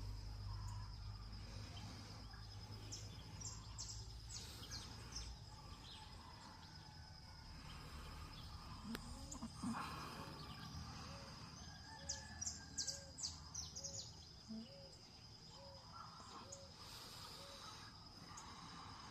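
Outdoor nature ambience: birds chirping in short high calls over a steady high-pitched insect drone. Midway, a run of short low notes repeats nearly twice a second for several seconds. A low rumble underlies the first few seconds.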